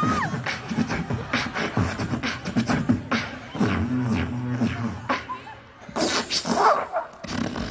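Beatboxer performing into a microphone through a PA system: a quick run of mouth-made drum hits, with a sliding vocal tone at the start and low hummed bass notes about halfway through.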